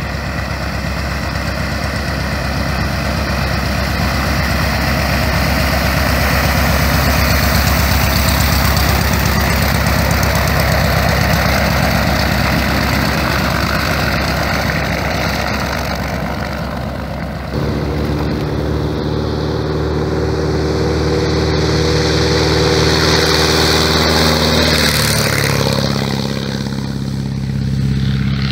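Van's RV-8 light aircraft's piston engine and propeller running as it taxis on the runway. About two-thirds of the way through the sound changes abruptly to a steadier, more even engine note, and it swells in loudness near the end as the plane applies power for takeoff.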